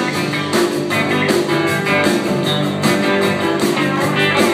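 Live country band playing an instrumental passage: strummed acoustic guitars over a steady drum beat, with bass and keyboard.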